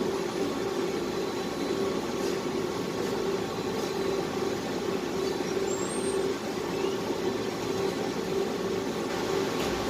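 Trotec Speedy 300 laser engraver running, a steady mechanical hum and whir from its motion system and air or exhaust fans.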